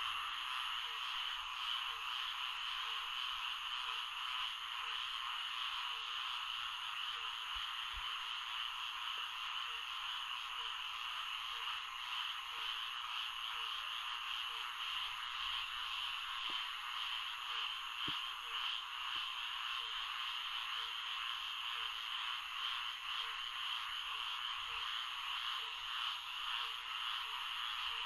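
Florida swamp frog chorus: a dense, steady chorus of many frogs calling at once. A lower call repeats about one and a half times a second.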